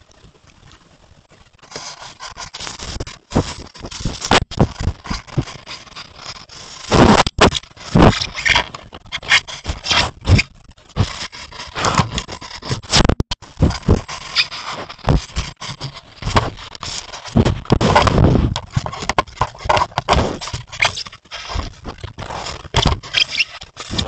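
Roosevelt elk rubbing its fur and head against a trail camera, right on its microphone: loud, irregular scraping and rustling with sharp knocks on the camera housing, starting about two seconds in.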